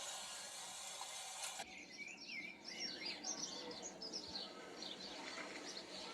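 A steady hiss that cuts off abruptly about a second and a half in, then birds chirping and singing in quick, varied calls.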